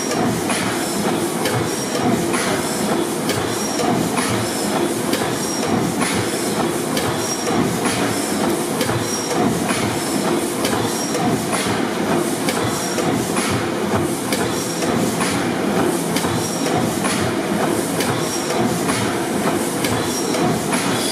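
600 HP Snow pipeline compressor engine, a large slow-speed four-stroke gas engine, running steadily with a continuous rhythmic clatter of its valve gear and a short high tick repeating about every second.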